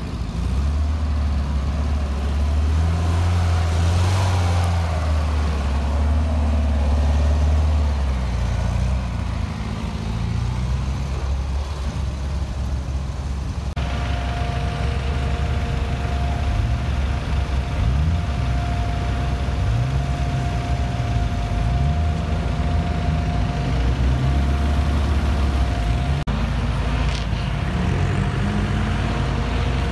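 Steyr-Puch Pinzgauer 710M army truck's air-cooled four-cylinder petrol engine running under load as it drives over rough ground. Then, after a cut about fourteen seconds in, a tube-frame off-road buggy's engine runs and revs up and down, with a steady high whine over it.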